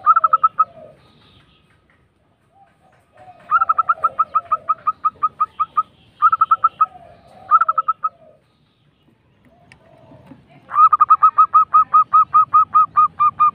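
Zebra dove (perkutut) singing: several phrases of rapid, evenly spaced staccato cooing notes, about six a second, some opening with a lower warbling note. The longest unbroken run of notes comes near the end.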